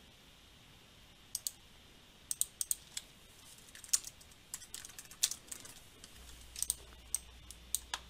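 Typing on a computer keyboard, with mouse clicks: scattered, irregular keystrokes starting about a second in.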